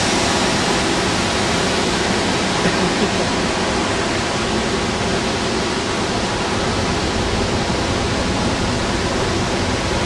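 High Force waterfall on the River Tees: a steady, unbroken rush of falling water.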